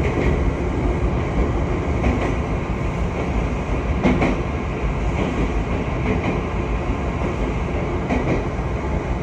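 Train running along the track: a steady rumble of wheels on rails, with faint clacks about every two seconds.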